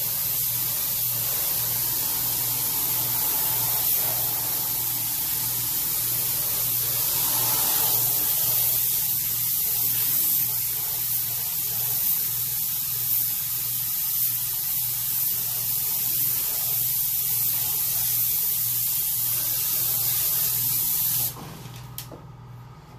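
Harbor Freight Spectrum HVLP spray gun spraying paint, a steady hiss of air at low pressure (about 16 to 20 psi) for a light mist coat. The hiss cuts off suddenly near the end.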